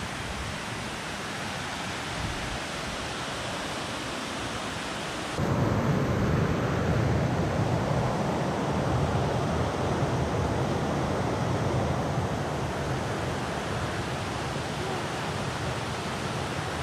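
Steady rushing of a waterfall's water, with no distinct events. About five seconds in it becomes suddenly louder and deeper.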